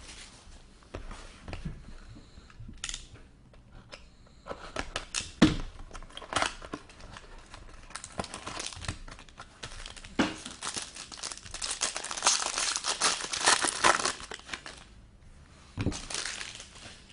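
Plastic wrapping on a sealed box of trading cards being torn open and crumpled by hand: irregular crinkling and tearing with a few sharp snaps, busiest for a few seconds in the second half.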